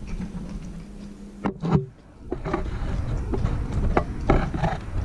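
Handling noise and a scattered series of short knocks on a wooden dining table, with spoons clinking in bowls, during a meal.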